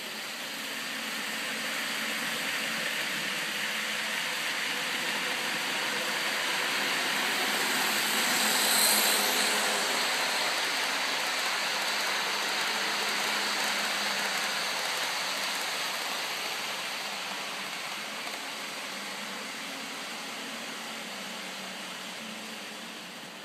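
N-scale model passenger train (AT&SF El Capitan) running along the track: a steady rushing rumble of wheels on rail with a faint motor hum. It grows louder as the train approaches, is loudest about nine seconds in as it passes, then slowly fades.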